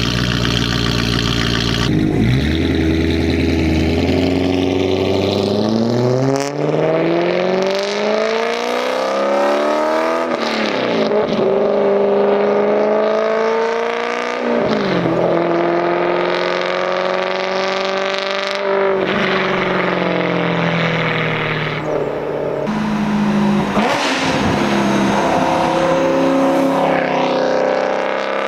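2011 BMW E92 M3's 4.0-litre V8 through a GTHAUS Meisterschaft exhaust, really loud. It idles briefly, then revs and accelerates hard, its pitch climbing through each gear and dropping back at each upshift, several times over.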